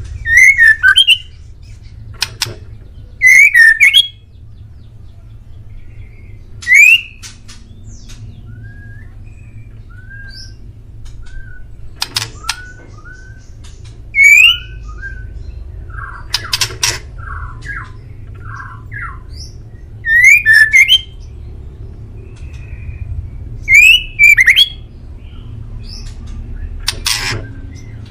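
White-rumped shama (murai batu) calling: loud harsh bursts with quick rising notes every few seconds, and soft short whistled notes in between.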